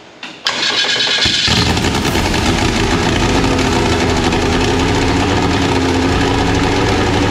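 Viking 195 Turbo geared, liquid-cooled aircraft engine: a click, then the starter cranks for about a second before the engine catches and settles into steady running. This is the engine's first successful start.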